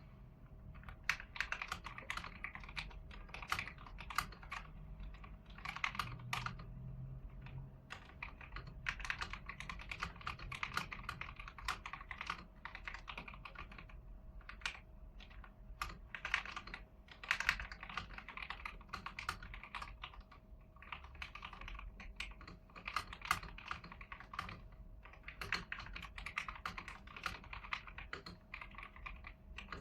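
Typing on an AIGO A100 mechanical keyboard with stock yellow switches: a fast, continuous clatter of keystrokes, with occasional louder strokes standing out.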